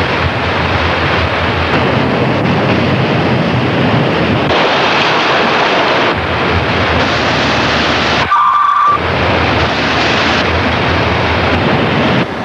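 Loud steady rush of sea water and wind, its character shifting at several cuts. A short high beep sounds about eight seconds in.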